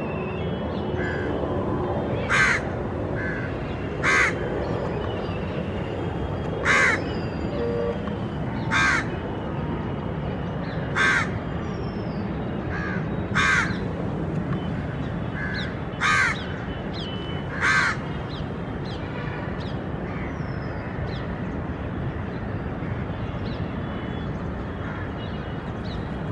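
A crow cawing, eight loud single caws about two seconds apart that stop a little over halfway through, with fainter chirps of small birds and a steady low background hum.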